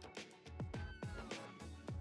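Background music with a steady electronic beat: a deep kick drum about twice a second with hi-hat ticks between, and a short falling synth tone about a second in.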